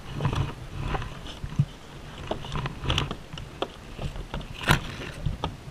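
Handling noise of fishing gear in a kayak: scattered light clicks and knocks as the rod, line and tackle are handled, with a sharper knock about a second and a half in and a louder one near the end, over a low rumble.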